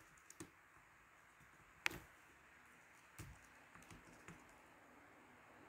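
A few separate computer keyboard keystrokes, quiet and spaced out, the sharpest about two seconds in.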